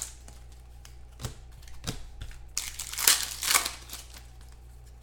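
Trading card packs being handled: foil wrapper crinkling and cards rustling, with a couple of light taps, over a steady low electrical hum.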